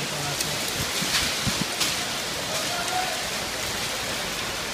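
Hailstorm coming down hard on market-stall awnings: a steady hiss of falling hail and rain, with a few sharper ticks of stones striking about a second in.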